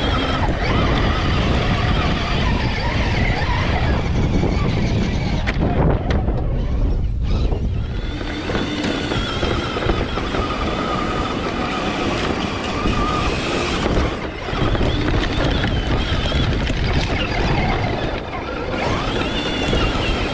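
1/10-scale RC rock crawler's electric motor and gears whining, the whine rising and falling in pitch with the throttle as it climbs a steep dirt hill, over a steady noise of tyres grinding on loose dirt, heard from a camera mounted on the truck.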